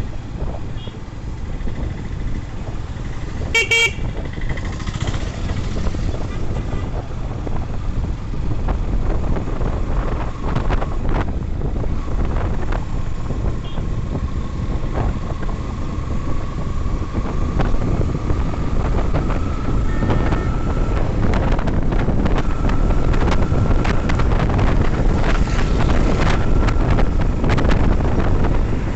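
Yamaha FZS V3 motorcycle under way: a steady low engine and wind rumble that grows slowly louder, with a short vehicle horn honk about four seconds in.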